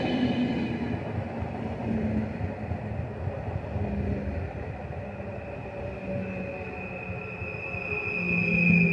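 PKP Intercity ED160 Stadler FLIRT electric multiple unit running past along the platform, its wheels and running gear rumbling steadily. A high steady ringing tone builds near the end, as the loudness peaks while the last car goes by.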